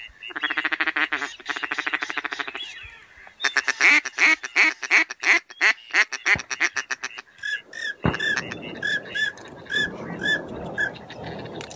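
Ducks quacking: a fast chattering run of calls, then a loud series of quacks at about six a second, then slower repeated quacks over a steady rushing noise in the last few seconds.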